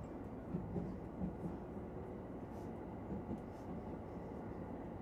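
Steady low rumble inside a Japanese commuter electric train carriage, with a few faint clicks.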